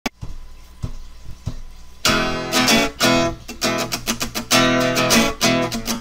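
Intro music of strummed guitar chords, coming in loud about two seconds in after a few soft taps.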